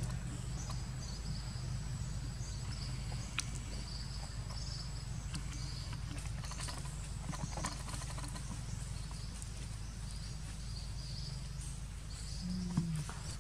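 Outdoor ambience: a steady low rumble with intermittent high insect buzzing, a thin steady high whine and a few small clicks and rustles, plus a short low sound near the end.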